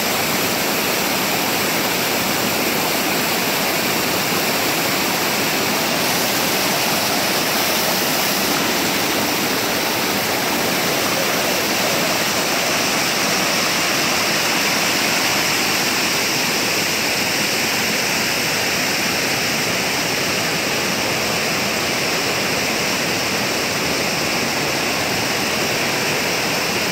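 A mountain waterfall cascading over rocks: a steady, loud rush of white water that holds level throughout.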